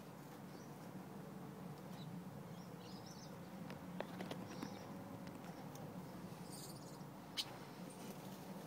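Gouldian finches giving a few sparse, faint short calls, with one sharper call about seven seconds in, over a low steady hum.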